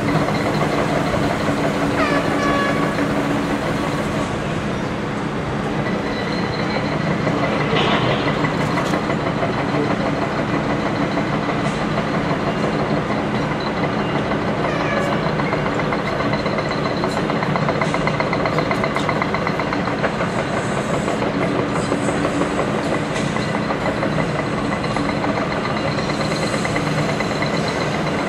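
Komatsu PC300 excavator's hydraulic hammer pounding in rapid, steady blows over the running diesel engine.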